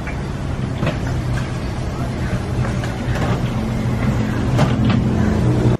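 A steady low engine hum, with faint voices and a few light knocks over it.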